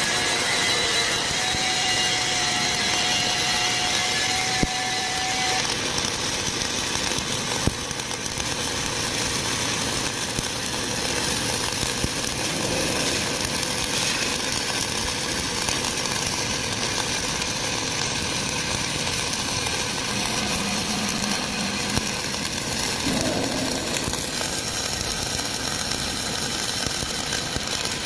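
Flux-cored arc welding: the arc running continuously with a steady hissing crackle while a vertical fillet weld is laid.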